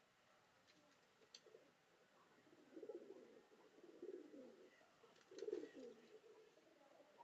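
Domestic pigeons cooing softly in low, burbling calls, with the clearest coos about three, four and five and a half seconds in. A few faint clicks are also heard.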